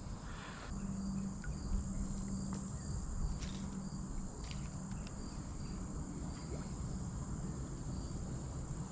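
Crickets chirping in a steady, high-pitched chorus, with a faint low hum and a few soft clicks underneath.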